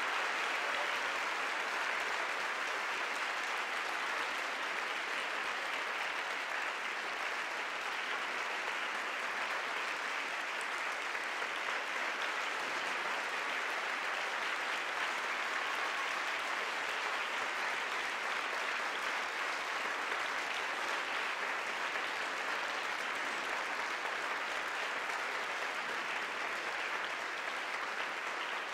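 Theatre audience applauding, a dense, steady clapping that holds at the same level throughout.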